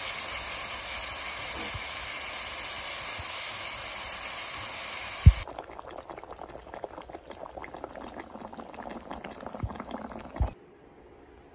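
Marinated pork ribs sizzling in a pan as a steady hiss. After a sharp thump about five seconds in, the braise of pork ribs and carrots bubbles in its broth with many small pops, then cuts off near the end.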